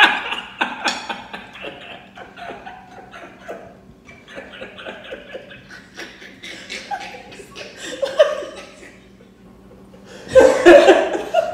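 A man and a woman laughing hard, loudest at the start and again from about ten seconds in, with quieter fits of laughter in between.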